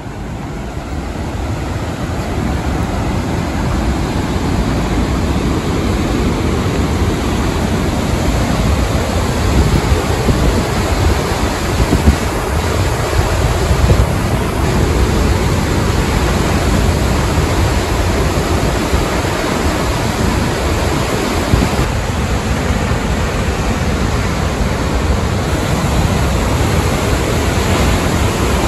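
Roar of a large waterfall, Cumberland Falls, a steady, loud rush of falling water that grows louder over the first few seconds as the microphone moves closer, then holds.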